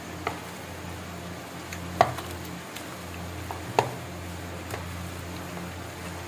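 Hands mixing raw mutton pieces with spices in a glass bowl, the meat and bones knocking sharply against the glass a few times, the loudest about two seconds in.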